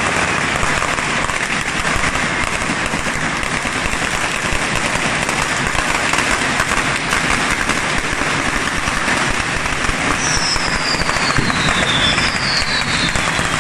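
Firecrackers and fountain fireworks going off in a dense, continuous crackling barrage. Two falling whistles cut through near the end.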